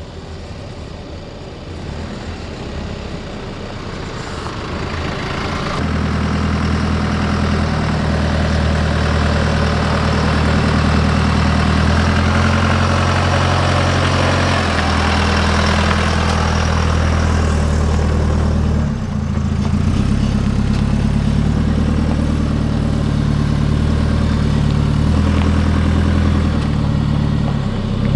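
Holden Colorado ute's turbo-diesel engine running at low revs as it crawls along a sandy track, a steady low engine note that becomes louder about six seconds in.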